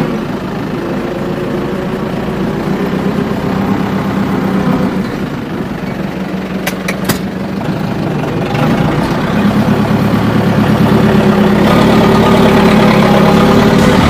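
Tractor diesel engine running steadily, heard from inside the cab while it drives over a corn silage pile to compact it; the engine grows louder about two-thirds of the way through as it takes more load.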